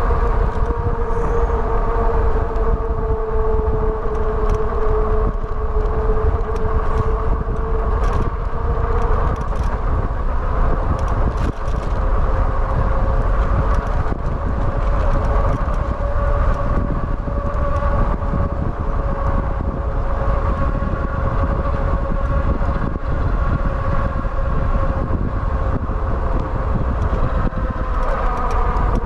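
Hub motors of a Wallke H9 AWD e-bike whining steadily under way, the pitch rising a little about a third of the way in and dropping back near the end as speed changes, over a heavy low rumble of wind on the microphone.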